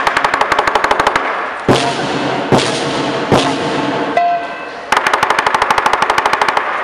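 Lion dance percussion of drum, cymbals and gong: a fast even roll of about ten strikes a second, then three heavy accented beats about a second apart, then another fast roll near the end.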